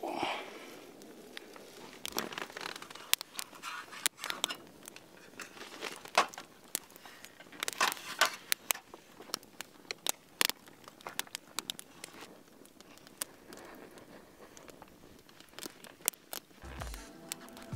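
Campfire of dry branches crackling, with irregular sharp pops and snaps. Music comes in near the end.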